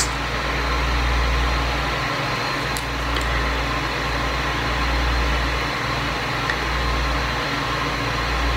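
Steady low hum with an even hiss underneath: background room noise, with the hum dipping briefly a few times.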